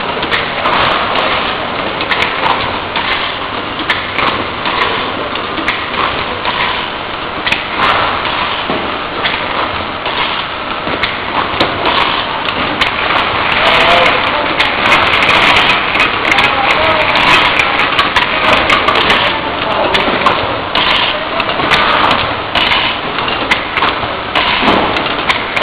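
Automatic oil-bottling line running: a steady mechanical din with frequent clicks and clatter from plastic bottles on the conveyor and the filling and capping machines.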